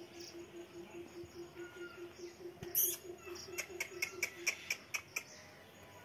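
Animal calls outdoors: a low, even pulsing call repeating about four to five times a second, stopping a little past halfway. A brief loud crackle about halfway in is followed by a quick run of about eight sharp chirps.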